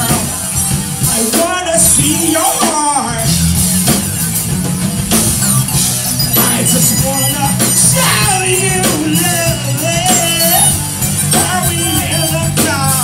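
Rock band playing live, with a drum kit, a held low bass line and a voice singing over it.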